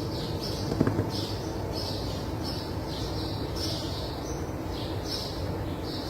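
A bird chirping over and over, a short high chirp about every half second, over a steady low background hum. One light knock under a second in.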